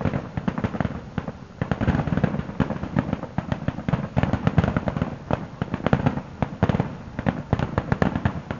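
Fireworks going off in a rapid, continuous barrage of many overlapping pops and bangs, like a finale.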